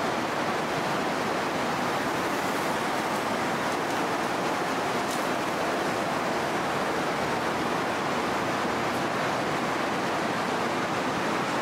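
Steady, even rushing noise that holds the same level throughout, with no separate knocks, clicks or voices in it.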